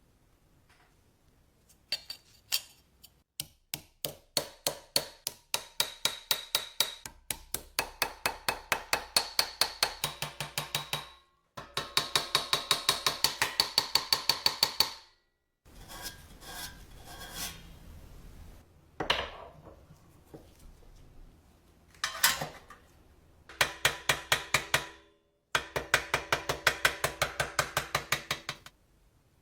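A hammer striking metal in quick, even runs of blows, each with a short metallic ring. There are about three or four blows a second at first, then a faster run, with short pauses between runs, as on a part of a rusty old cash register being worked back into shape.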